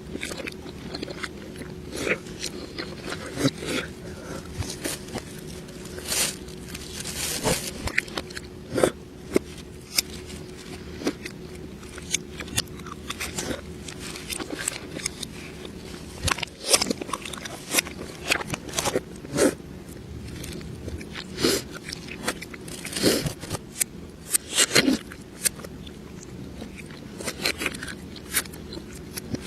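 Close-miked eating sounds played in reverse: irregular sharp crunches and chewing of crisp food, several a second at times, over a faint steady hum.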